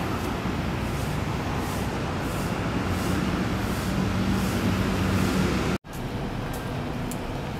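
Steady city traffic noise, a rumble of passing vehicles with an engine drone that swells briefly. The sound cuts out abruptly for an instant about six seconds in.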